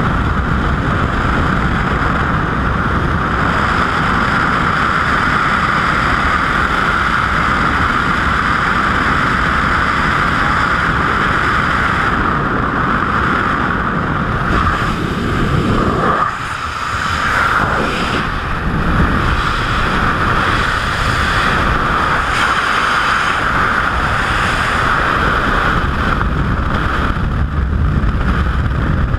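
Loud, steady rush of wind and propeller wash over a helmet camera's microphone at the open door of a small plane. About sixteen seconds in it briefly dips and changes as the jumper exits, becoming the wind of skydiving freefall.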